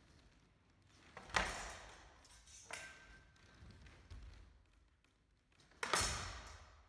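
Steel practice swords and bucklers clashing in sparring: two sharp ringing strikes, the first about a second and a half in and the louder one near the end. Between them comes a lighter clink that leaves a thin ring hanging for about a second.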